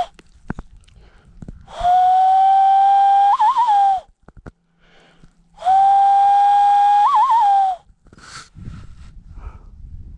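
A person whistling through cupped hands: two long, steady, breathy notes of about two seconds each. Each ends in a quick wavering trill before it drops off.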